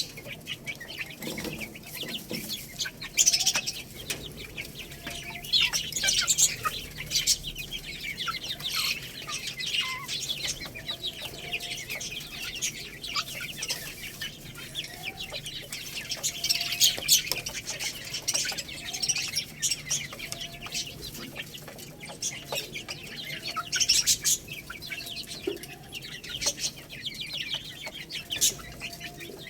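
Young chickens peeping and chirping in a dense, continuous chorus of short high calls, swelling into louder bursts every few seconds.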